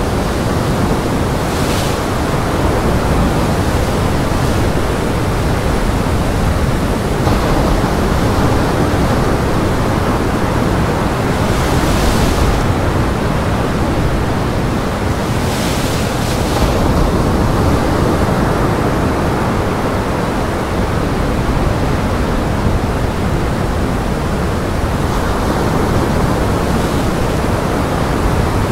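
Heavy surf breaking on a rock breakwater in gale-force wind, a continuous loud roar of waves and wind with a few brief hissing surges of spray.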